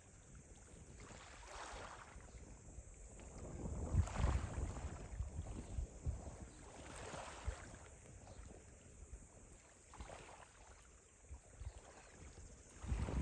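Wind buffeting the microphone in uneven gusts, strongest about four seconds in and again near the end.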